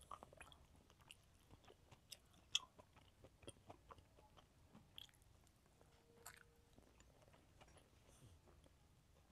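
Quiet, close-miked eating sounds of rice eaten by hand: chewing, lip smacks and the squish of fingers working rice on the plate, in scattered soft clicks, the sharpest about two and a half seconds in.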